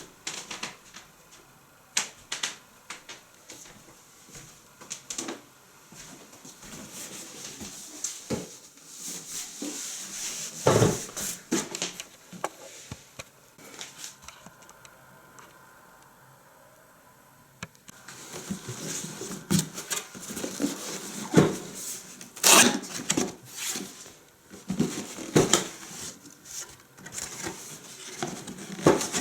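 Irregular clicks, taps and knocks of objects being handled, with louder thumps about 11 and 22 seconds in and a quieter stretch in the middle.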